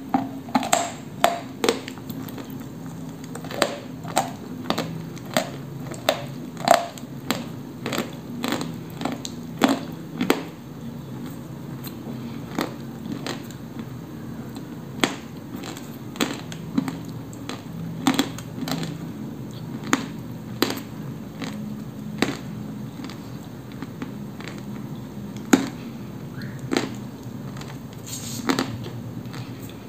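Dry crunching as a hard grey-white piece of koksol is bitten and chewed: sharp, irregular cracks, close together in the first ten seconds or so and sparser after that.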